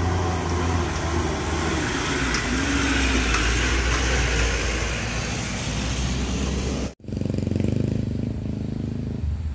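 Heavily loaded Mitsubishi L300 pickup's diesel engine labouring up a steep incline as it passes close by. It breaks off suddenly about seven seconds in and is followed by a lower, steadier engine hum.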